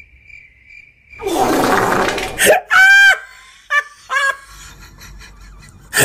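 A string of short cartoon sound effects. About a second in there is a noisy burst lasting about a second, then a loud, high, squeaky pitched sound that bends in pitch near the middle, followed by a few short squeaks.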